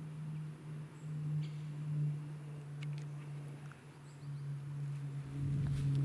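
A steady low hum runs under a few faint high ticks and chirps. About five seconds in, footsteps start swishing through tall grass and undergrowth.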